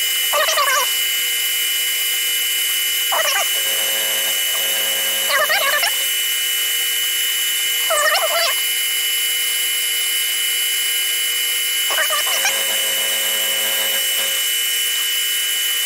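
Sieg X2 mini mill running, its spindle driving an end mill that plunges a hole into an aluminium plate: a steady machine whine, with brief wavering squeals every few seconds.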